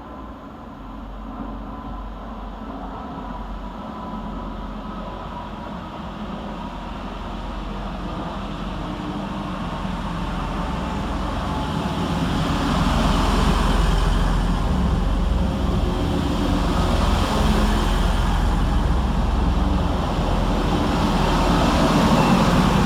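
A train coming through the station: a low rumble and rushing noise that build up over about twelve seconds and then stay loud.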